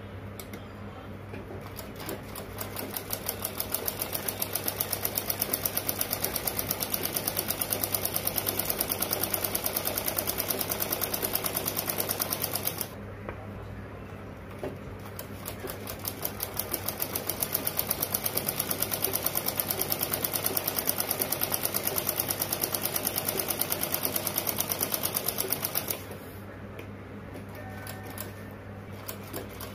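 Black straight-stitch sewing machine stitching fabric in fast, even runs of stitches: it runs for about ten seconds, stops briefly, runs again for about ten seconds, and stops a few seconds before the end.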